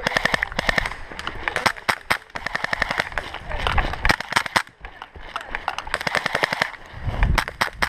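Airsoft pistols firing in rapid bursts: several quick strings of sharp shots with short gaps between them.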